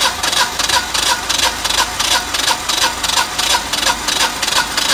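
Standby generator engine spun over by its electric starter with the spark plugs out, cranking evenly at about three to four pulses a second. This is a compression test, with the cylinder building to almost 150 psi.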